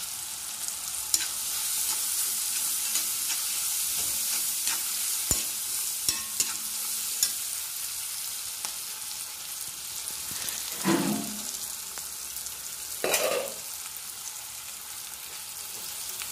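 Onions, green chillies and curry leaves sizzling in hot oil in an iron kadai, stirred with a metal spatula that clicks and scrapes against the pan. Two louder scrapes come about two-thirds of the way through.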